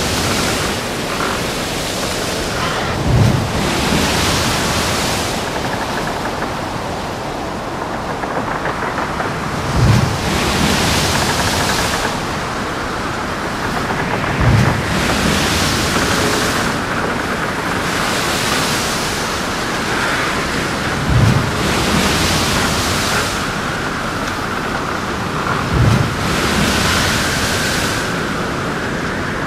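Ship in a storm at sea: continuous wind and sea noise, with waves washing in hissing swells every few seconds and a low thud roughly every five to seven seconds. A steady high whistle comes up partway through.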